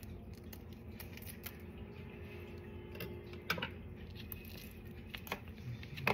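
Kitchen scissors snipping open a small plastic sachet, a few sharp clicks and snips with the loudest about halfway through, over a faint steady hum.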